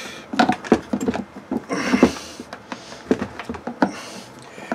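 Irregular hard-plastic knocks and clicks with short bouts of rubbing, from a windshield washer pump motor being worked out of its rubber seal in a plastic washer fluid reservoir.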